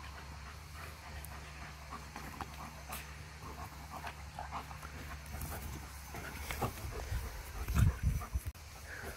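A German Shepherd and a Caucasian Shepherd puppy play-fighting: scattered short dog noises and panting, with a few loud low thumps about eight seconds in.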